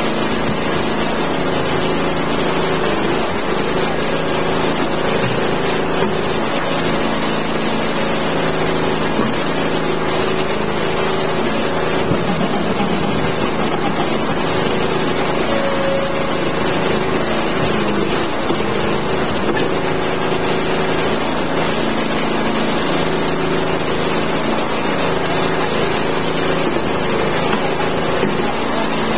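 Small engine driving a compressed earth block press, running steadily at constant speed.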